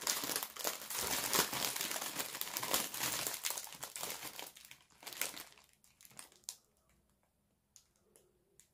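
Clear plastic bag crinkling as hands rummage through the small bagged packets of diamond painting drills inside it. The crinkling is dense for about the first five seconds, then thins to a few scattered crackles.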